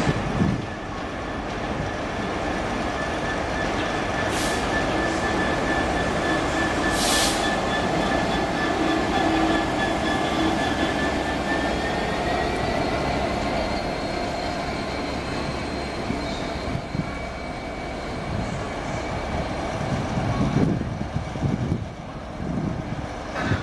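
A pair of EWS Class 66 diesel-electric locomotives passing close at low speed, their two-stroke V12 engines running under a steady rumble, with a held high squeal from the wheels on the rails and two brief hisses a few seconds in. The sound eases near the end as they pull away.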